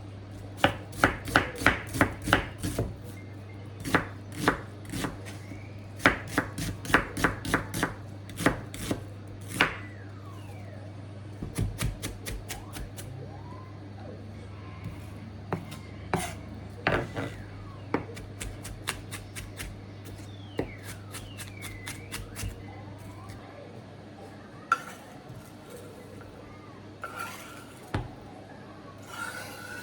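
Kitchen knife chopping on a cutting board in quick runs of several strokes a second, with pauses between the runs. A low steady hum underneath stops about three-quarters of the way through.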